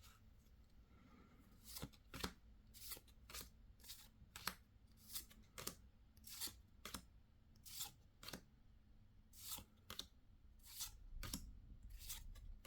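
Pokémon trading cards being slid off a stack one at a time, a short soft swish for each card, about two a second.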